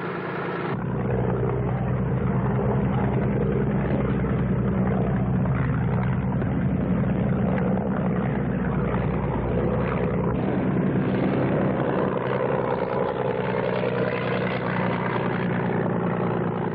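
Piston engine and propeller of a World War I-era biplane droning steadily in flight. The sound is dull and thin, with the high end cut off as on an old film soundtrack.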